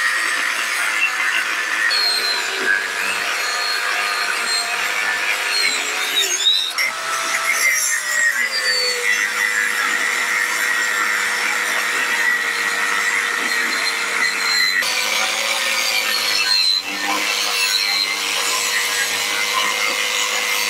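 Angle grinder cutting through the steel frame bar of a chisel plow: a loud, continuous grinding with a steady motor whine whose pitch sags briefly a few times as the disc bites into the metal.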